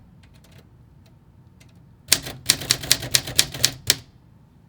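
Olympia SM5 manual portable typewriter being typed on: a quick run of about ten key strikes, typebars hitting the platen, starting about two seconds in.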